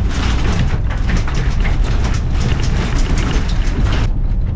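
Lada Niva driving hard on an offroad track while towing a caravan: a steady low engine and drivetrain rumble under a loud crackling rush from the tyres on loose ground. The rush stops about four seconds in.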